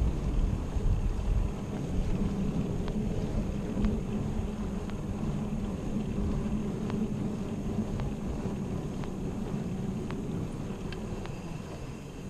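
Riding a bicycle: wind buffeting the microphone over a steady low road rumble, with a faint tick about once a second.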